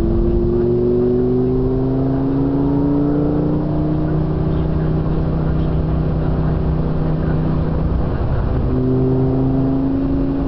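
Lamborghini Murciélago's V12 engine heard from inside the cabin, pulling under acceleration with its note climbing over the first few seconds, then holding steady. The note drops out briefly about eight seconds in and picks up again.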